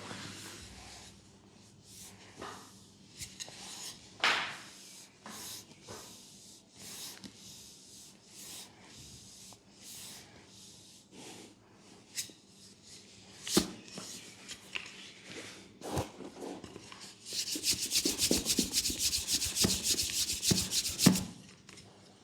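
Hands rubbing and stroking bare skin in a leg massage: scattered soft swishes, then about four seconds of fast, vigorous rubbing strokes near the end, the loudest part.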